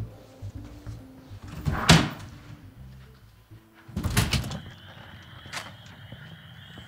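Doors being opened: a sharp clack about two seconds in, then a cluster of knocks and rattles about four seconds in as a storm door is pushed open. Soft background music runs underneath.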